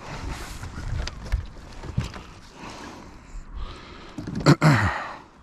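Scuffling and water noise from a kayak as a smallmouth bass is brought in, with scattered knocks. Near the end there is a sharp knock and a short, falling grunt.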